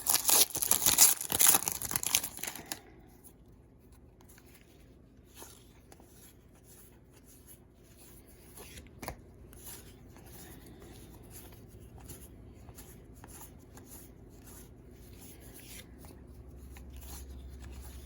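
A baseball card pack's wrapper is torn open and crinkled for about three seconds. Then come faint, scattered soft clicks as the cards are handled.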